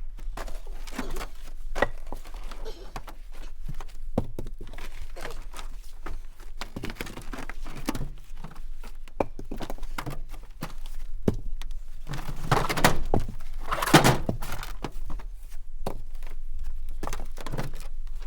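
Heavy oak and maple firewood rounds being unloaded from a pickup truck bed, thunking and knocking as they are dropped onto the pile, at an irregular pace; the loudest thuds come a little past the middle.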